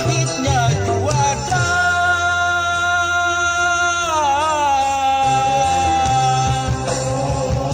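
A song played through a sound system: the melody holds two long notes, bending in pitch about four seconds in, over a steady bass line whose beat thins out in the middle and comes back near the end.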